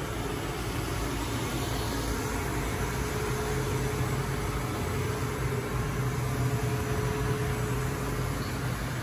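High-speed blown film extrusion machine running in production: a steady machine hum from its motors and air blowers, with a faint held mid-pitched tone.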